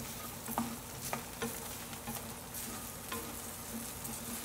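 Diced potatoes sizzling in oil in a stainless steel frying pan, with a few sharp knocks and scrapes of a wooden spoon stirring them against the pan.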